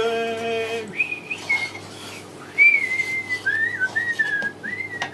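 A man's sung note breaks off about a second in, and he then whistles a slow tune of held, sliding notes. Faint ticks of a whisk in the batter bowl run underneath.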